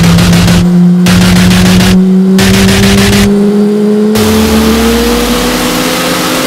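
An engine winding up, its pitch rising slowly and steadily over loud rushing noise. The noise cuts out abruptly three times, and a deep rumble joins about two-thirds of the way in.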